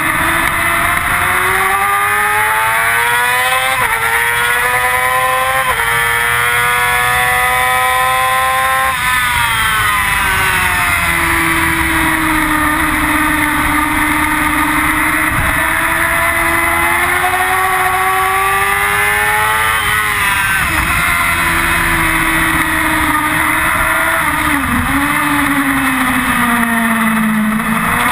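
Yamaha R6's inline-four engine at high revs on track, over steady wind noise. The pitch climbs with two sudden drops a few seconds in (upshifts), falls away around nine seconds in as the bike slows, then rises and falls gently through the corners that follow.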